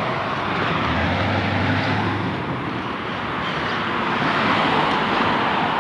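Road vehicle noise from the street: a steady rush of tyres and engine that swells a little in the second half.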